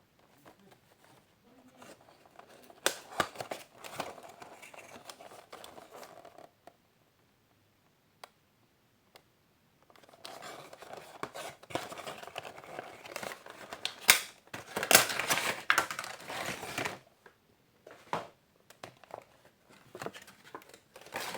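A Funko Pop! vinyl figure being unboxed by hand: cardboard box and plastic insert rustling and crinkling in two long bouts, with sharp clicks and snaps, the loudest about fourteen and fifteen seconds in, and a few scattered clicks near the end.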